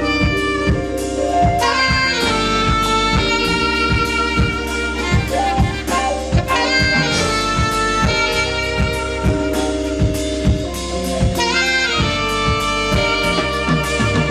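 Live jazz band: a saxophone playing the melody, with pitch bends and slides, over bass, keyboard and a steady drum-kit beat.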